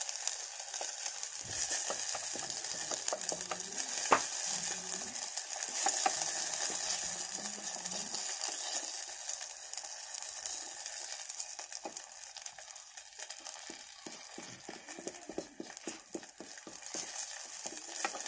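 Molten plastic and engine oil sizzling in a very hot pan over a wood fire, with clicks and scrapes of a wooden stick stirring it, coming more often toward the end.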